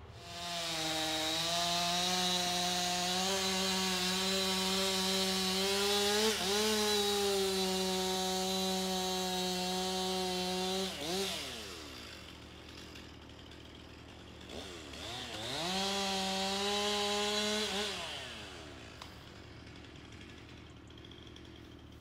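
Chainsaw held at high revs for about ten seconds, its pitch falling away, then revved again for about three seconds before dying down.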